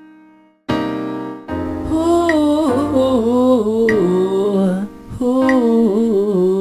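Slow R&B song intro: an electric piano chord fades away, a new chord comes in just under a second in, and a gliding, wavering melody line starts over it about a second and a half in.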